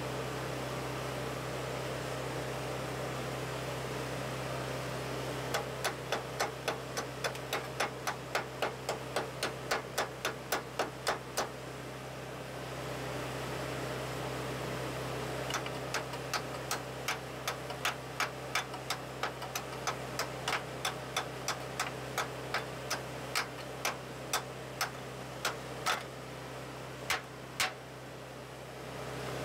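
Overhead welding done as stitch welding: the arc is struck in short, regular pulses, about two to three a second, in two long runs with a pause between and a couple more near the end. Under them runs a steady low hum.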